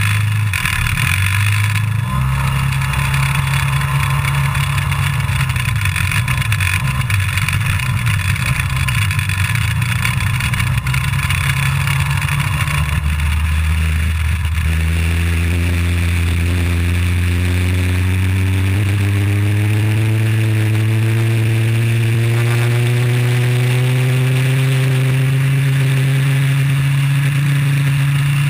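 IAME Leopard 125cc two-stroke kart engine heard onboard, running at low revs among other karts' engines. From about halfway it takes over and its note climbs slowly and steadily as the kart accelerates flat out.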